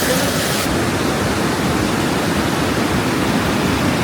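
A river rushing steadily close by, a constant even sound of flowing water. Its hiss turns duller just under a second in.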